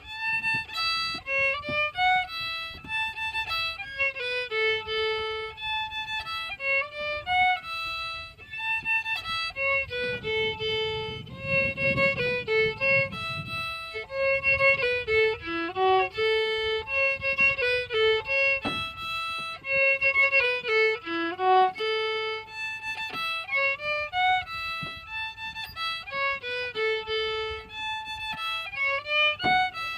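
Solo fiddle playing a tune of quick, separate notes.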